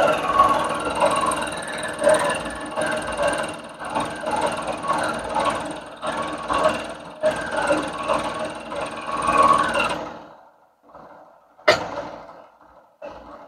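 Bridgeport milling machine's end mill cutting a block of white acetal plastic, a dense chattering cutting noise with steady tones in it. The cutting noise stops abruptly about ten seconds in, followed by a single sharp click.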